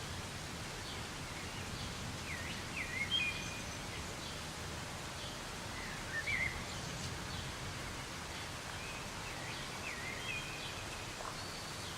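Soft rain falling as a steady even hiss, with a bird chirping in three short phrases over it, about two, six and nine seconds in.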